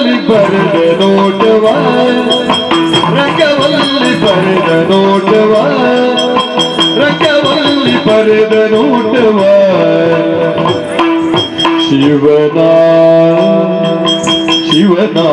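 Yakshagana music: a melody in long held notes over a steady drone, driven by maddale barrel-drum strokes, with the dancers' ankle bells jingling to the beat.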